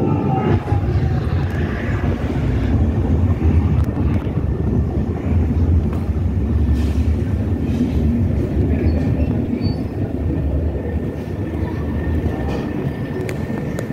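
Loud, steady low rumble on a cruise ship's open deck, with a faint thin whine coming in about halfway through.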